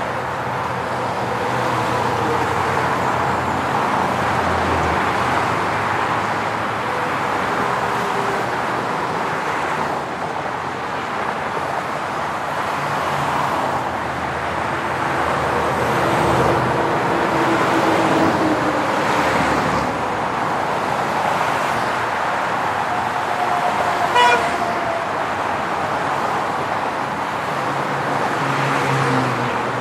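Continuous highway traffic: a steady rush of tyres and engines, with vehicles passing and their engine tones falling in pitch as they go by. A brief car-horn toot sounds once toward the end.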